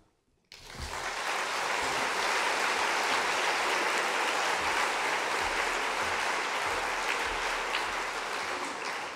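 Audience applauding, starting about half a second in and fading out at the end.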